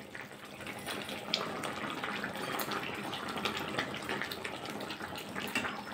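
Curry gravy bubbling at a simmer in a kadai, a steady watery hiss. A few light clicks and scrapes of a spatula come as fried parshe fish are slid into the pan.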